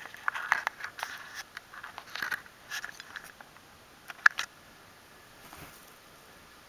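A cat playfully pawing and scratching at carpet: a quick run of scuffs and light clicks for the first few seconds, the sharpest about four seconds in, then quiet.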